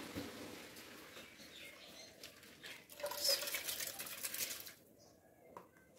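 Washed rice poured from a plastic bowl into an aluminium pot of watery tomato masala: a soft rushing splash that swells about three seconds in, then dies away.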